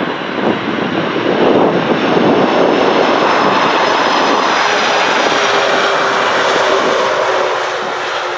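KLM Boeing 747-400's four jet engines running loud as the airliner touches down and rolls out along the runway. The noise gets louder about two seconds in, a steady whine comes in about halfway, and it fades near the end, with wind buffeting the microphone at the start.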